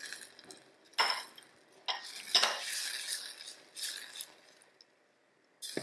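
A silicone spatula stirring vegetables into sauce in a stainless-steel saucepan, with scraping and a few sharp knocks and clinks against the pan, the loudest about a second in and around two and a half seconds in.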